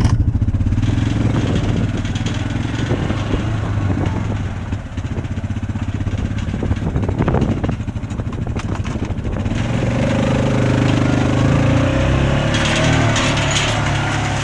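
Small motorbike-type engine running, its level dipping around five seconds in and picking up again about ten seconds in.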